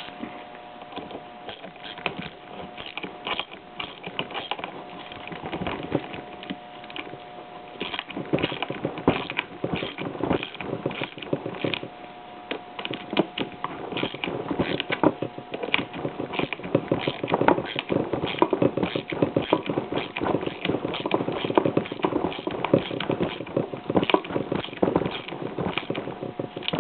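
Hand tools working on an MG TF 1500 differential cage as the locating pin and its lock tab are screwed down: a stream of irregular small metallic clicks and scrapes, busier from about eight seconds in, over a faint steady hum.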